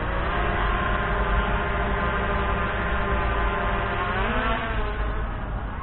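DJI Mavic Pro quadcopter with Platinum low-noise propellers hovering overhead: a steady multi-pitched propeller whine that dips near the start and swells and dips again about four seconds in as the motors change speed.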